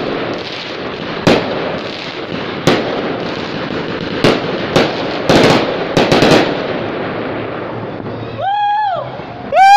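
Fireworks going off overhead: a string of sharp bangs over a constant crackle. Near the end a horn sounds twice, the second time louder.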